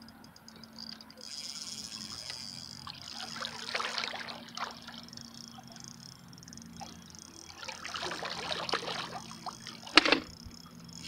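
Water splashing and sloshing in two bursts, with a single sharp knock about ten seconds in.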